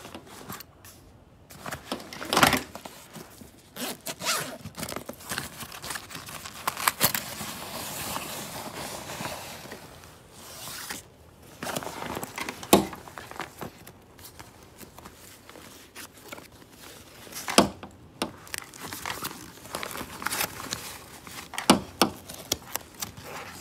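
Fabric travel backpack being handled: zippers pulled open and shut, with the nylon fabric rustling and scraping. A few sharp clicks or knocks from the bag's hardware come at intervals.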